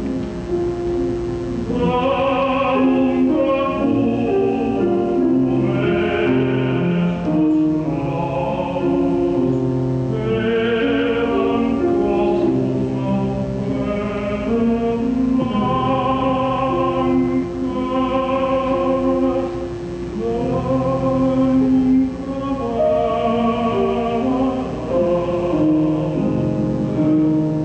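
Operatic tenor singing with vibrato over grand piano accompaniment. The piano plays alone for about the first two seconds before the voice comes in.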